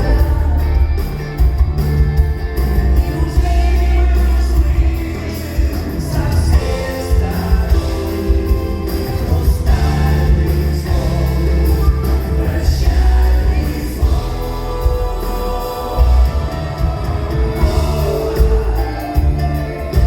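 A live pop song: singing over a band with a heavy bass and beat.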